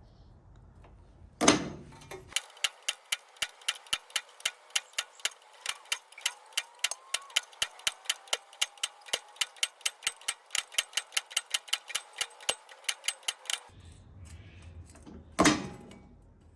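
Rapid, even hammer taps on steel, about four a second for some eleven seconds, with a single heavier blow before them and another near the end.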